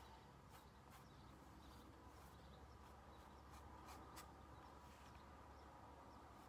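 Faint, scratchy swishes of a large flat brush stroking acrylic paint onto a stretched canvas, a few irregular strokes over near-silent room tone.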